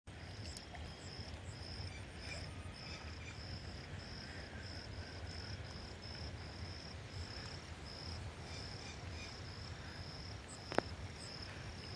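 Insect chirping in a steady, regular rhythm of short high-pitched pulses, about two a second, over a faint low rumble. A single sharp click sounds near the end.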